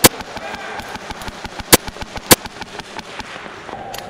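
Airsoft gunfire: a rapid patter of sharp clicks and cracks, with three much louder sharp bangs, one at the start and two close together near the middle.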